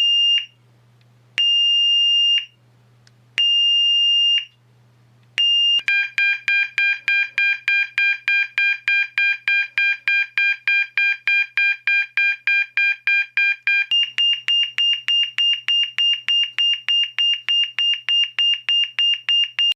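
Electronic alarm sounding. It gives three long, high beeps with pauses between them, then beeps fast, about four a second, on a chord of tones. About two thirds of the way through it switches to a single high tone at the same rate.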